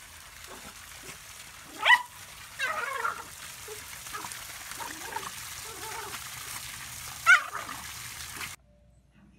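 Small dog barking sharply twice, about two seconds in and again near the end, with softer whines and yips between, over the steady splashing of water jetting from a pool sand filter.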